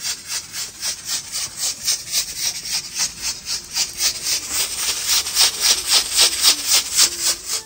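Pressure cooker on a wood fire venting steam through its weight valve in rapid rhythmic puffs of hiss, about four or five a second, growing louder toward the end: the cooker is up to pressure and its whistle has started.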